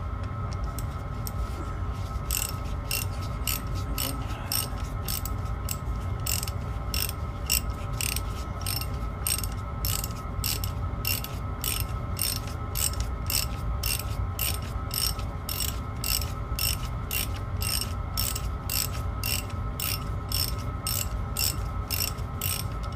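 Small diesel air heater running, its fuel dosing pump ticking evenly about twice a second over the steady hum of the heater's fan and burner.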